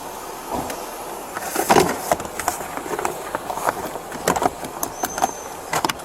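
Irregular clicks and knocks, the loudest about two seconds in, over a steady background rumble.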